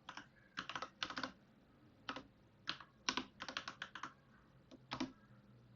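Computer keyboard keys typed in short, irregular bursts of clicks: a password being entered at a terminal prompt.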